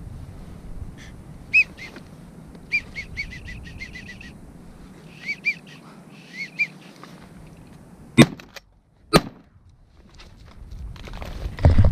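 A run of short, high, rising-and-falling whistles like wigeon calls, then two shotgun shots about a second apart from a pump-action shotgun, which bring down two ducks.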